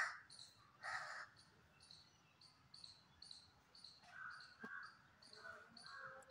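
Crow cawing: two loud caws about a second apart at the start, then softer calls later, over a fast, even, high-pitched chirping.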